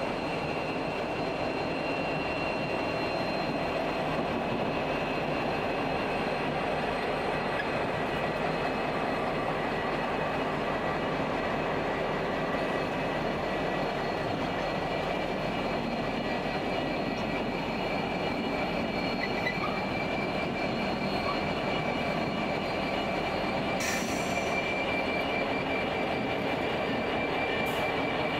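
A light-engine consist of diesel-electric freight locomotives, among them a G class, running as it rolls slowly past, with a steady high whine over the engine noise. A short hiss comes near the end.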